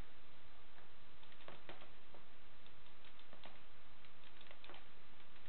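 Paintball markers firing in scattered sharp pops, a few close together, over a steady hiss.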